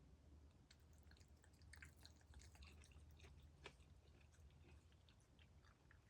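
A cat chewing and biting at a chicken wing: faint scattered wet clicks and crunches, with one sharper click a little past halfway.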